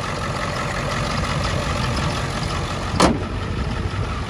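Ford 7.3-litre Power Stroke turbo-diesel V8 idling steadily, an engine the owner calls very healthy. About three seconds in there is one brief sharp sound that drops quickly in pitch.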